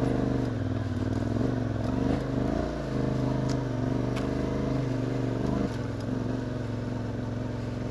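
Yamaha Ténéré 700's parallel-twin engine running at a steady low speed on a dirt track, its pitch wavering slightly with the throttle. It drops a little, as if eased off, about six seconds in.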